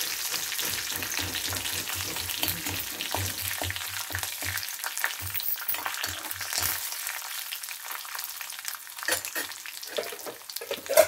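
Oil sizzling in a kadai as dried red chillies, garlic, curry leaves and dals fry for a tempering, with a steel ladle stirring and scraping through it. The sizzle slowly gets fainter, and a sharp tap comes near the end.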